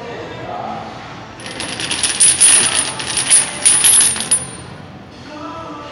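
Heavy steel lifting chain clanking and rattling link against link as it is hoisted up, a dense run of metallic clinks lasting about three seconds that starts about a second and a half in.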